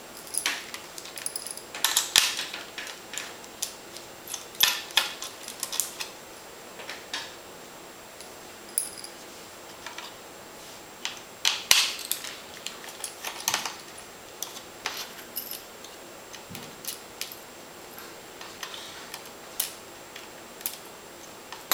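Small screwdrivers clicking and scraping on the plastic underside of a Sony Vaio VGN-SR laptop as screws are taken out, with small metal screws and tools clinking down on a ceramic tile tabletop. The clicks come in irregular clusters, loudest about two, five and twelve seconds in, with quieter stretches between.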